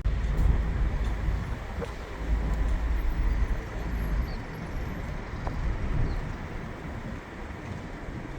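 A moving car's steady road and engine rumble, heavy in the low end and easing a little about halfway through.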